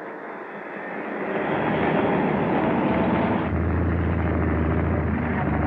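Military vehicle engines running with a rattle, building up over the first two seconds; about three and a half seconds in the sound changes abruptly to a deeper, steady engine rumble.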